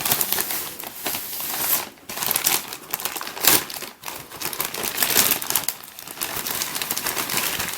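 Postal packaging being opened by hand: wrapping crinkling and tearing in irregular bursts as it is pulled apart.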